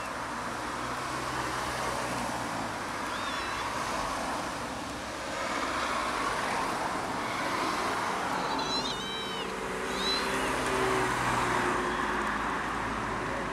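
Steady road traffic noise, with a tiny kitten's faint, high-pitched meows: once about three seconds in and a few times around nine to ten seconds in.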